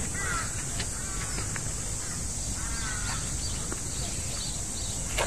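Outdoor ambience: a few short bird calls over a steady high hiss and low rumble.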